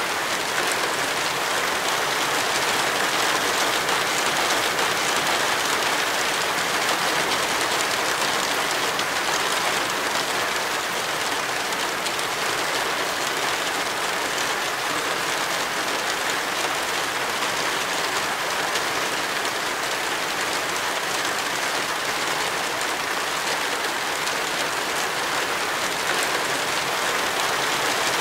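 Steady heavy rain: a dense, even hiss with no separate drops standing out.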